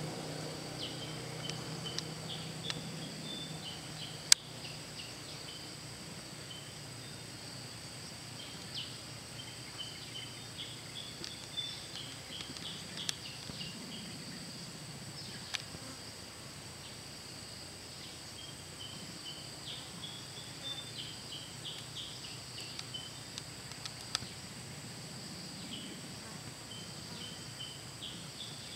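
Outdoor ambience of insects: a steady high-pitched drone, with clusters of short chirps coming and going. A sharp click sounds about four seconds in.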